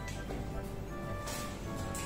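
Soft background music of held, steady notes.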